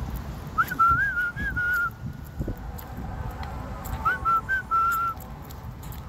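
A person whistling two short, warbling phrases about three seconds apart.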